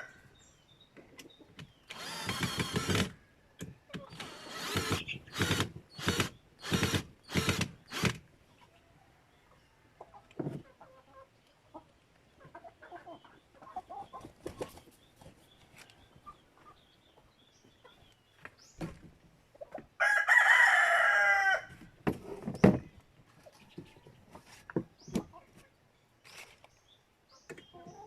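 Free-range chickens clucking, with a rooster crowing once, a call of about two seconds, roughly three quarters of the way through. A run of about seven quick sharp noises a few seconds in.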